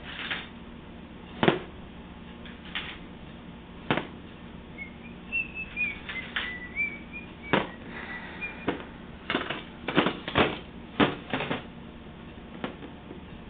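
Irregular sharp clicks and taps, one every second or so, bunching into a quick flurry around the two-thirds mark, over a low steady hum. A faint, wavering, high chirp-like whistle runs through the middle stretch.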